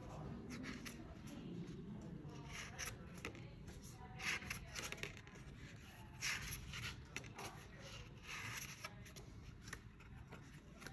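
Pages of a small card-stock booklet being opened, turned and handled: soft paper rustles and brushing sounds in short bursts every second or two.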